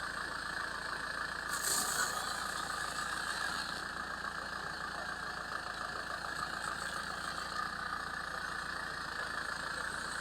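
Steady machine-like running noise, with one brief louder crackle about a second and a half in.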